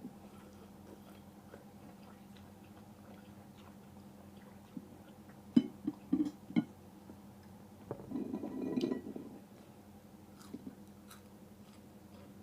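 Someone eating a bowl of noodles: quiet chewing, with a few sharp clicks near the middle and a louder noisy stretch lasting about a second, about two-thirds of the way through.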